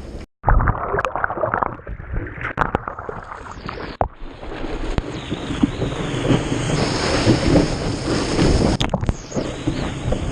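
Ocean surf and splashing water with wind buffeting the microphone, in several short clips cut together; the sound drops out briefly at the start and changes abruptly twice.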